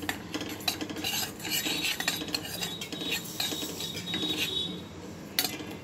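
A metal spoon scraping and clinking against a stainless-steel pan while stirring dry cumin seeds roasting on low heat, in irregular strokes.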